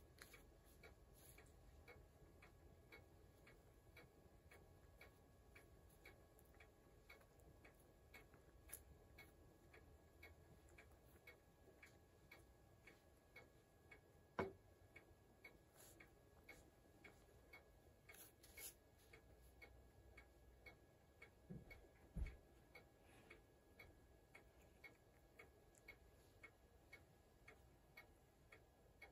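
Near silence with faint, even ticking about twice a second, like a clock. Two short, soft knocks stand out, about halfway through and again later on.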